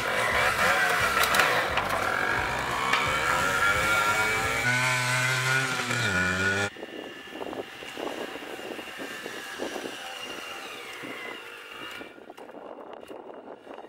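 Dirt bike engine running and revving loudly, then, after an abrupt drop about seven seconds in, heard fainter as the motorcycle rides along.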